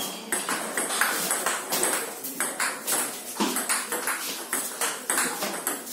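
Table tennis ball struck back and forth in a fast rally: a steady run of sharp clicks of ball on paddle and table, roughly two to three a second.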